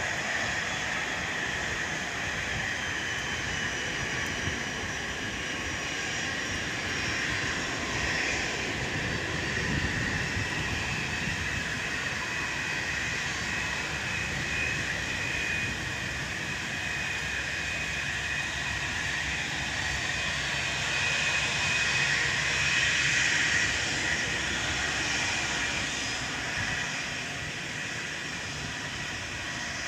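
Jet airliner engines running with a steady high-pitched whine over a broad rush of noise, growing louder about twenty seconds in and easing off near the end.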